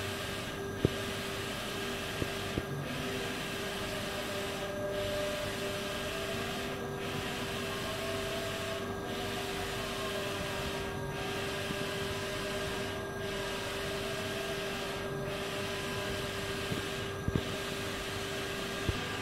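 Wide-format inkjet printer printing on vinyl: the print-head carriage sweeps back and forth with a steady mechanical whirr, the hiss dropping briefly at the end of each pass about every two seconds. A few light clicks sound over it.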